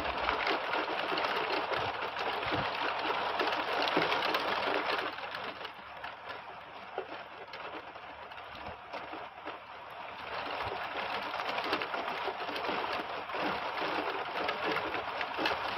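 Heavy rain falling steadily on trees and roofs, easing for a few seconds midway and then coming back harder.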